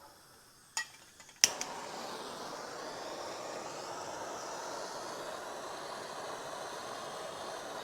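A click, then a sharp click and a gas torch lit for soldering, burning with a steady hiss.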